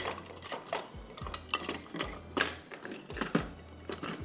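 Irregular clicks and knocks of kitchen utensils and measuring cups against a glass mixing bowl as flour is added to creamed butter and sugar, with a low hum that cuts in and out.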